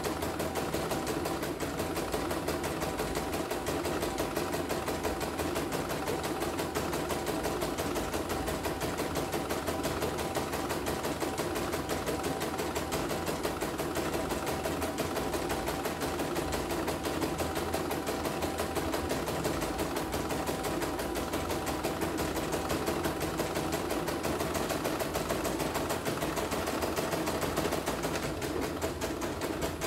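CNY computerized embroidery machine stitching a design, its needle and freshly fitted rotary hook running at a steady, fast stitching rhythm.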